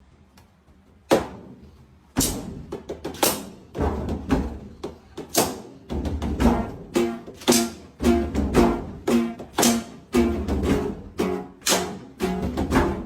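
Background music with a steady beat of drum hits and pitched notes, starting with a single hit about a second in and running as a regular rhythm from about two seconds.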